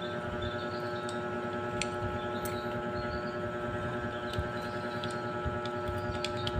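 Steady electrical hum, with a few light metallic clicks as motorcycle clutch parts (springs and pressure plate) are handled and set in place.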